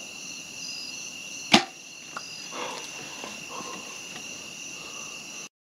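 A compound bow being shot: one sharp crack about a second and a half in as the arrow is released, over the steady chirping of crickets and other insects. The sound cuts off suddenly near the end.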